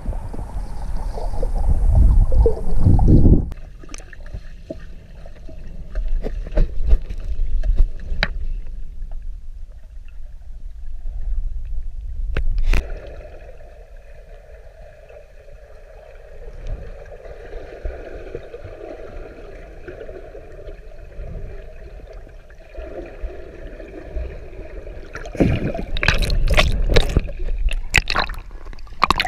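Muffled underwater water noise around a snorkeler's camera: a heavy low rumble of water movement at first, then a quieter stretch with scattered clicks and knocks. Near the end come several loud splashes as the camera breaks the surface.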